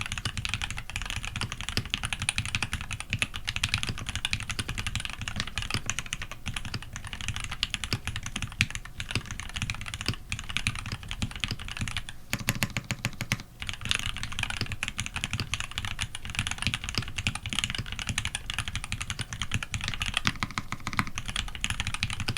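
Continuous fast typing on a custom TX87SE mechanical keyboard: fully lubed Tealios v2 linear switches in Cherry top housings on a brass plate, under GMK keycaps. About twelve seconds in comes a quick even run of keystrokes, followed by a brief pause.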